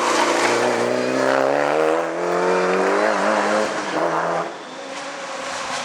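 Hillclimb race car accelerating hard, its engine note climbing steadily in pitch for about three seconds, with a short break near three seconds, before the sound drops away about four and a half seconds in as the car moves off.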